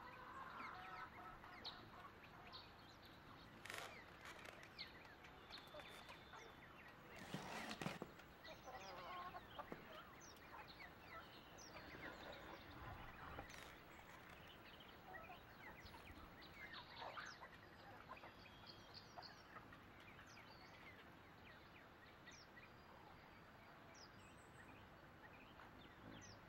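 Faint rural ambience: chickens clucking and small birds chirping here and there, with two brief louder noises about four and seven seconds in.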